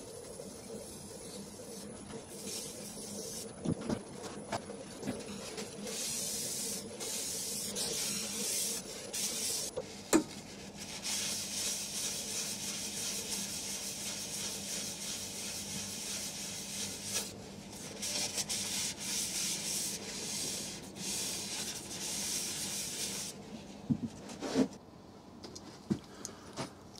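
A cloth rubbed against a turned ash bowl on the lathe, a steady hissing rub that swells and eases, with a faint steady hum underneath. Near the end come a few sharp clicks of tools being handled.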